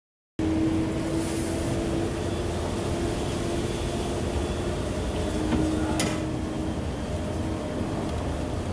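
Steady low rumble and hiss with a faint steady hum, starting abruptly about half a second in, and a single sharp click about six seconds in.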